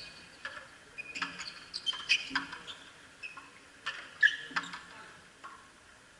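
Frontenis rally: sharp, irregular cracks of the rubber ball struck by strung rackets and slamming off the front wall and floor, each with a short echo, mixed with brief high squeaks of sneakers on the court surface.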